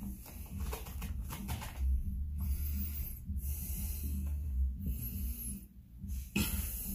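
A red-tailed boa wrapped around a rat in a plastic tub, shifting its coils as it starts to swallow. Irregular hissing, scuffing noises come in several bursts, the loudest near the end, over a steady low rumble.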